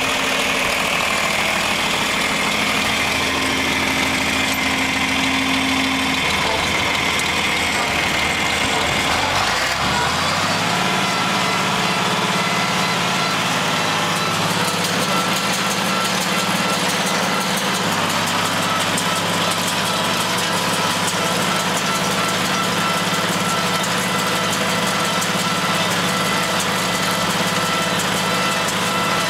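John Deere tractor engine running slowly, then revving up about ten seconds in and holding a steady higher speed: throttled up to working speed for baling hay.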